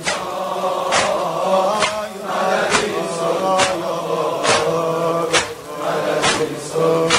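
Male voices chanting a slow devotional refrain in chorus, with long held notes, over a sharp steady beat that falls about once a second.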